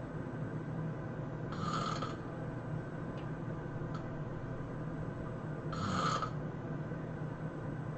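A person snoring in their sleep: two breathy snores about four seconds apart, over a steady low hum.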